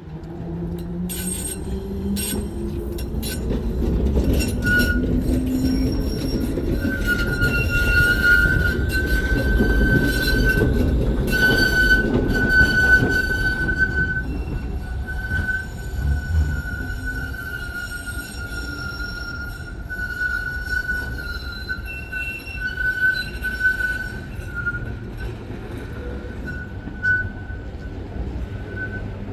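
Tram running through a tight turning loop. Its motor whine rises as it gathers speed and it clicks over rail joints, then the wheels squeal on the curve in a steady high-pitched tone that holds almost to the end.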